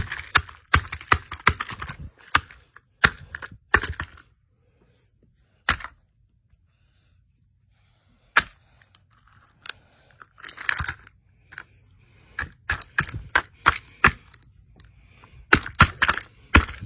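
Plastic toy bulldozer being smashed: bursts of sharp cracks and clattering knocks, with a few seconds of near quiet about halfway through before the hits pick up again.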